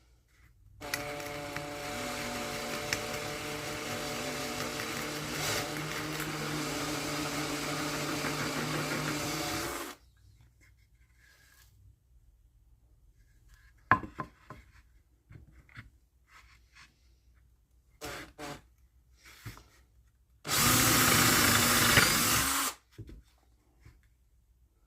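Power drill boring through a pine board, running steadily for about nine seconds, then a few knocks, then a second, shorter run of about two seconds.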